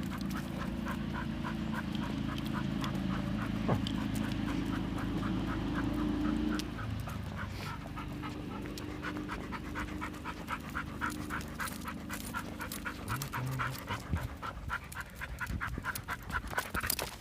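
A dog panting hard and fast, about four breaths a second, over a low rumble that fades about seven seconds in.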